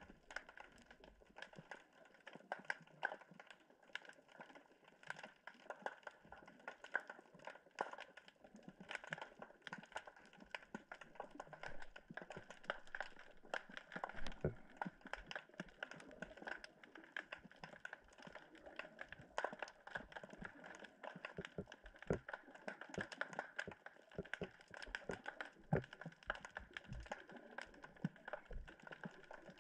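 Faint, dense underwater crackle: many small irregular clicks and snaps, a few a little louder than the rest, over a steady hiss.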